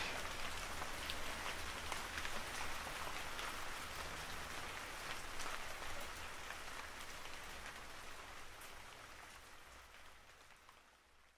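Rain falling steadily, with the patter of individual drops, fading out over the last few seconds.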